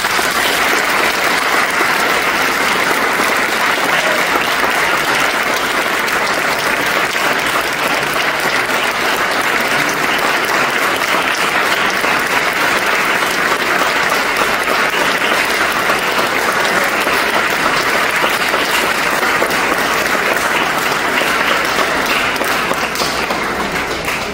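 A room full of people applauding steadily, dying away near the end.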